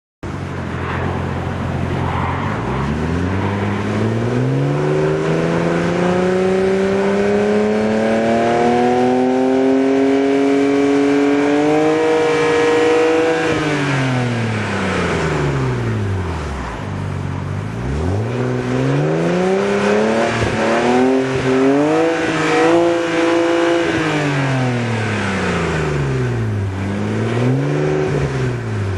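BMW 135i turbocharged inline-six exhaust through an aftermarket exhaust system. The note starts suddenly and climbs in one long pull for about ten seconds, then drops away. It rises and falls again a few more times near the end.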